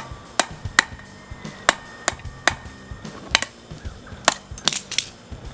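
Hammer striking a chisel to incise designs into a steel seax blade: sharp, ringing metallic taps, about two to three a second at an uneven pace.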